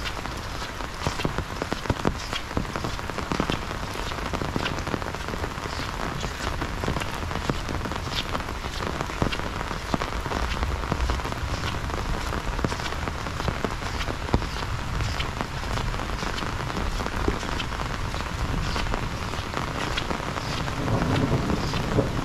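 Heavy rain falling steadily, with many sharp close drop-hits standing out from the hiss of the downpour. A low rumble builds near the end.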